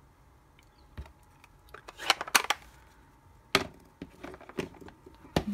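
Paper-crafting handling sounds on a craft mat: a short rustle of cardstock about two seconds in, with a few light clicks and knocks as stamping tools are moved, put down and picked up.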